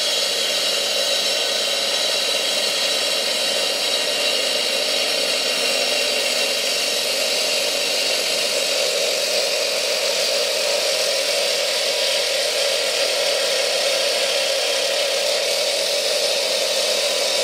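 Handheld 14-inch electric concrete saw running steadily: a high motor whine over an even hiss.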